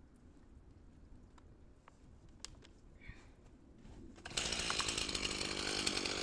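Faint quiet with a few small clicks, then a chainsaw starts running loudly about four seconds in and cuts off abruptly at the end.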